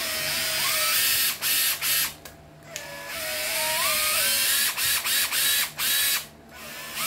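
Hitachi 14.4 V cordless drill run on its variable-speed trigger for a function test. In two longer runs the motor whine rises as it speeds up, and in between and after them it is pulsed in several short on-off bursts.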